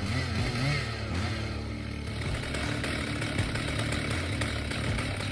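Large two-person chainsaw running under load as it cuts through a big tree trunk. Its engine pitch wavers up and down in the first second or so, then holds a steady drone.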